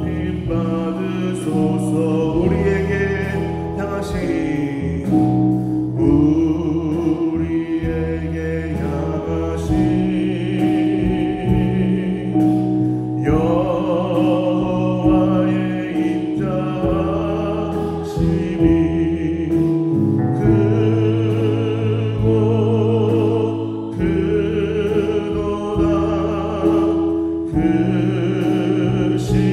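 Church praise band performing a gospel worship song: a group of singers holding long notes with vibrato over electric bass guitar, keyboard and drums.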